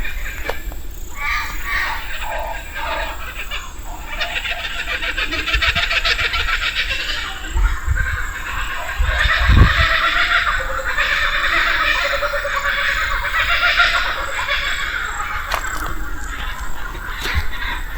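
Bush birds calling, swelling into a loud chorus of rapid repeated calls from about four seconds in and easing off after about fourteen seconds.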